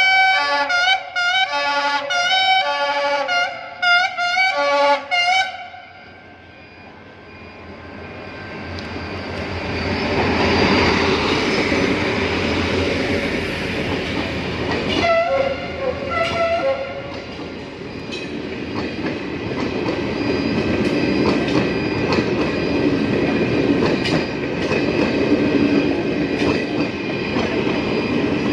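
Henschel locomotive's horn played by the driver as a tune: a quick rhythmic run of short blasts. Then the horn stops and the train's running noise swells as it pulls into the station, with a few more short horn notes about halfway through and a steady rumble of the train passing after that.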